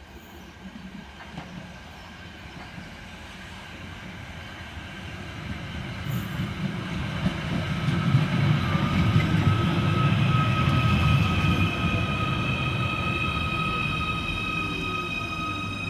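Merseyrail Class 777 electric multiple unit arriving at the platform. Its rumble grows steadily louder to a peak past the middle, then eases off, and a steady high-pitched whine comes in about halfway and holds to the end.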